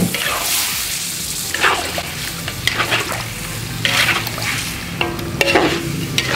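Duck pieces in curry paste sizzling in a large metal wok while a spatula stirs and scrapes the pan in several separate strokes.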